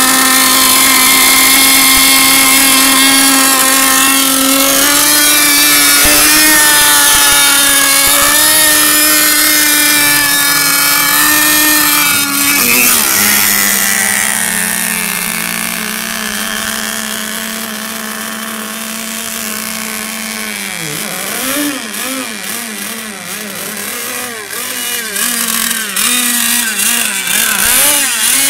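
Small combustion engine of an RC racing boat running at full throttle with a steady high pitch, stepping down in pitch about halfway through. In the second half the pitch swings up and down again and again as the boat turns and passes.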